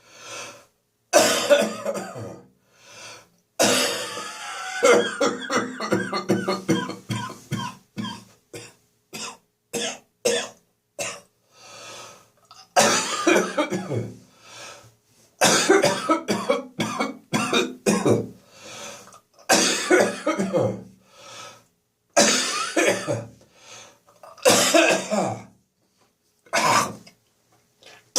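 A person coughing in repeated fits, each a second or two long with short pauses between. It is the residual chesty cough of someone recovering from bronchitis.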